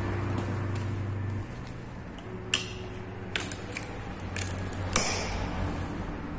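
Retaining clip on a Jeep Cherokee fuel pump module pressed down by hand: several sharp clicks in the space of a few seconds as its ears latch into place, over a low steady hum.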